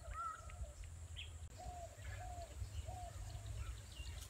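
Bird calling outdoors: a series of short, repeated notes about twice a second, with a few fainter, higher chirps, over a steady low rumble.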